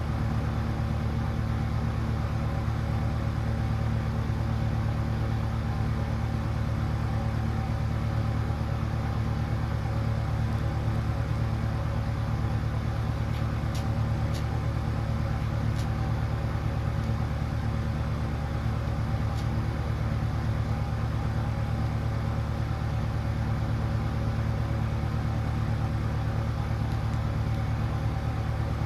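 A steady low machine hum with a few overtones, unchanging in pitch and level. A few faint high ticks about halfway through.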